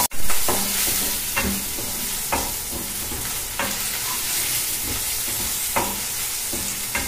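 Chopped garlic, chillies and turmeric sizzling in a little oil in a non-stick wok, sautéing until they wilt. A slotted spatula stirs them, knocking and scraping against the pan every second or so; the sound starts abruptly at the very beginning.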